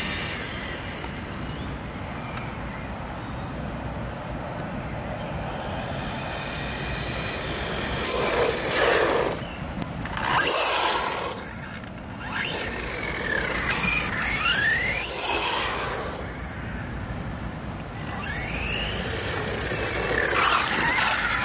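Small electric RC cars driving past on wet asphalt: motor and gear whine rising and falling in pitch, with tyre hiss. The passes are loudest from about eight to sixteen seconds in and again near the end.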